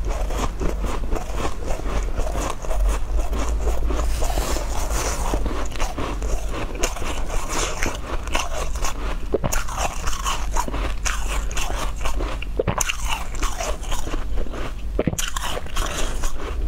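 Close-up crunching and chewing of mouthfuls of shaved ice: a dense, continuous crackle of ice grains breaking between the teeth, picked up by a clip-on microphone.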